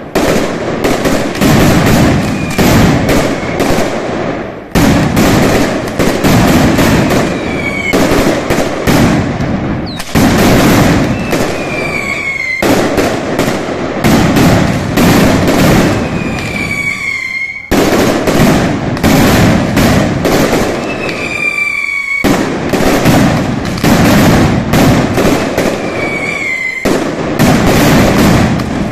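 Mascletà firecrackers detonating in fast, dense volleys of bangs, with short whistles falling in pitch breaking through several times.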